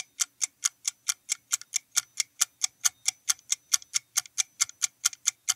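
Countdown-timer ticking sound effect: a fast, even clock tick, about five ticks a second, marking the time left to answer.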